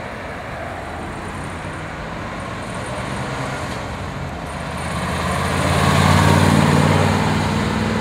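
A 1955 Ford Thunderbird's 292 V8 with dual exhaust driving past over the steady noise of road traffic, growing louder to a peak about six seconds in as it passes, then easing off as it pulls away.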